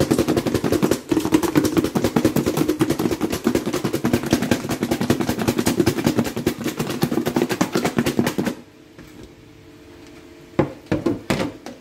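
A plastic food container holding seasoned whole fish, covered with a plastic cutting board, shaken hard to coat the fish: a fast, steady clatter of fish and plastic knocking together that stops abruptly about eight and a half seconds in, followed by a few separate knocks near the end.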